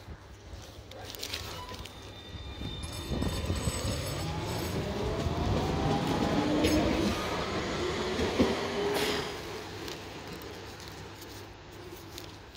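Tram pulling away from the platform, its electric traction motors whining in several tones that rise steadily in pitch as it gathers speed, over a low rumble of wheels on rail. It is loudest as it passes close about six to nine seconds in, then fades.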